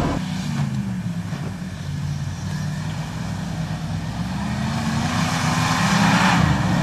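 Pickup truck's engine running as it drives on loose sand, its pitch falling and rising with the revs, and growing louder as the truck comes closer near the end.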